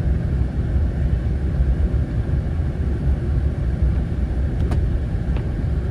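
Steady low rumble of a vehicle on the move, engine and road noise, with two faint clicks near the end.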